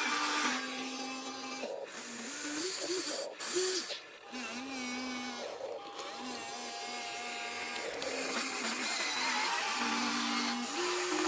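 Whining electric gear motors of a Huina RC excavator running. The whine holds a steady pitch, steps up and down as the motors change speed, and briefly drops out about four seconds in.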